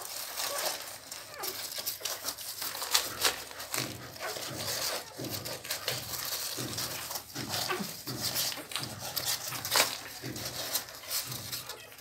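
Newborn pit bull puppies nursing at their mother: a continuous run of small suckling clicks with soft puppy noises repeating about every half second.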